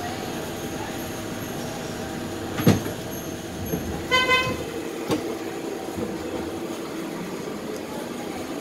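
Streetcar interior rumble running steadily under way, with a sharp knock about two and a half seconds in and a short vehicle horn toot about four seconds in.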